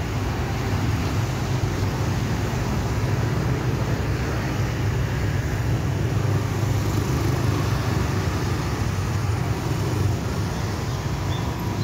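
Road traffic passing: cars, a van and motor scooters going by, a steady mix of engine and tyre noise.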